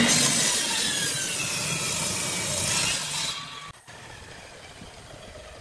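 Table saw cutting through a glued-up block of wood pushed on a sled, with a loud, dense sawing noise. The cut ends about three and a half seconds in, and the saw then runs on more quietly.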